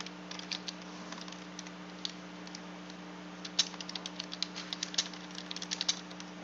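Typing on a computer keyboard: irregular keystroke clicks, sparse at first and quicker after about three and a half seconds, over a steady low hum.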